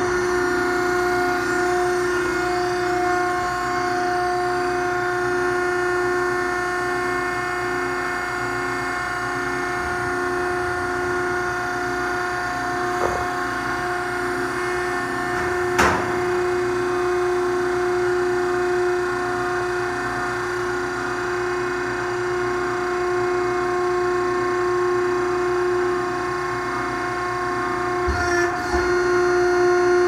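BACE V63OCC vertical baler's electric motor and hydraulic pump running with a steady whine as the platen is driven down, with a faint regular pulse under it. A single sharp click comes about halfway, and a couple of knocks near the end.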